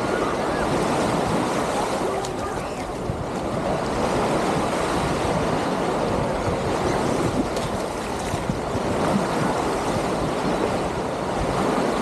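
Small waves washing steadily onto a sandy shore at the water's edge, with wind buffeting the microphone.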